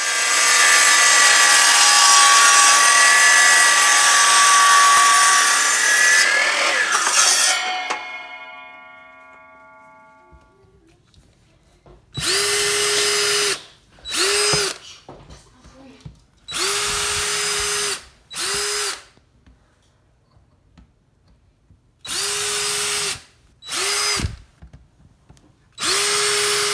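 DeWalt sliding compound miter saw cutting through a log with a loud whine for about seven seconds; then its motor is switched off and the blade winds down over a few seconds, fading out. Later, a power drill boring 3/16-inch holes into a log round, in about seven short bursts of a second or so. Each burst spins up, holds a steady pitch and stops.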